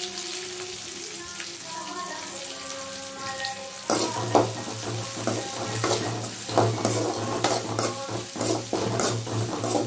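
Chopped onions sizzling in hot oil in an aluminium kadai. About four seconds in, a metal spatula starts stirring them, scraping against the pan in quick irregular strokes over the sizzle.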